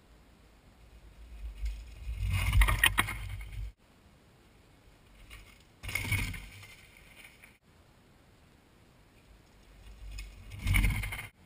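Mountain bike riding past close by on a dirt trail: tyres rolling over packed dirt and dry leaves with a low rumble, in three short passes, each cut off suddenly.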